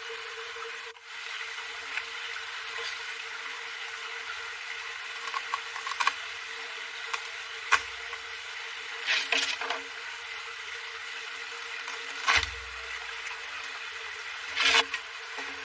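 Steady outdoor background hum with scattered short knocks and rustles of handwork; the louder ones come in the second half, including a heavier thump with a low rumble.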